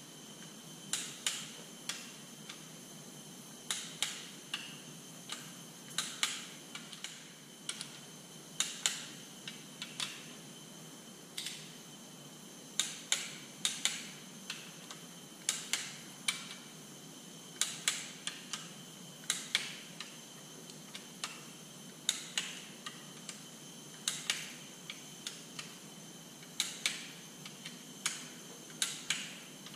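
Hand ratchet clicking in short, irregular bursts of a few sharp clicks each as the bolts are run down.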